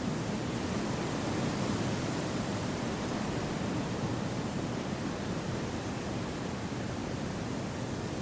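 Steady wind rushing through forest trees: an even, continuous hiss with no gusts or breaks, swelling slightly and easing off again.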